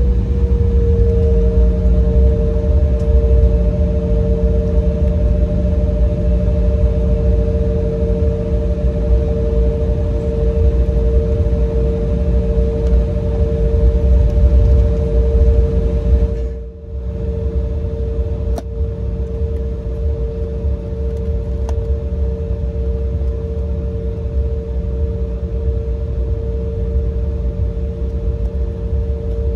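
Cabin noise inside an Embraer E175 jet on the ground: a deep steady rumble with a steady engine whine of a few held tones. The sound drops out for a moment about 17 seconds in.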